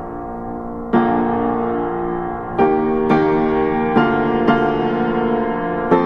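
Background piano music: slow sustained chords, with notes struck more often from about a third of the way in.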